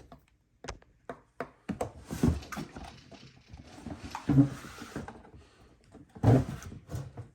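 Handling noises during snake feeding: a quick run of clicks and knocks, then rustling and scraping with a few heavier bumps.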